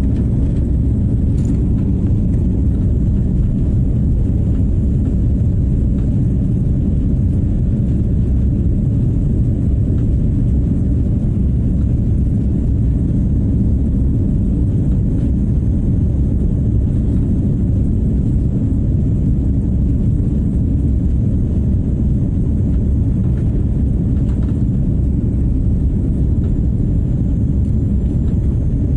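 Steady low rumble inside a jet airliner's cabin during the climb after takeoff: engine and airflow noise, even and unbroken throughout.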